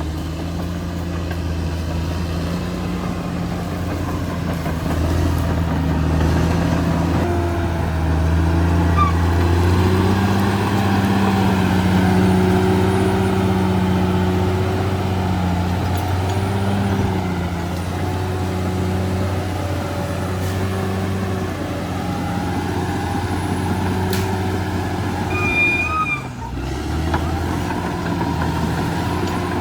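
Caterpillar D6R XL bulldozer's diesel engine running steadily under load, its pitch rising and falling slightly as the load changes, with a brief dip near the end.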